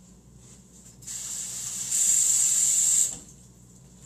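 Water running from a tap for about two seconds, growing louder partway through and then shut off.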